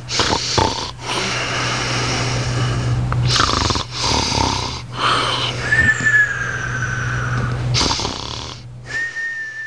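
Snoring: a run of rasping breaths with a high whistling note on some of them, about six seconds in and again near the end, over a steady low hum.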